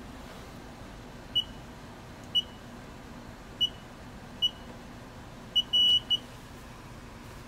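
Car wash code-entry keypad beeping as its buttons are pressed: five short, high beeps about a second apart, one per digit of the code, then a longer beep and a last short beep near the end.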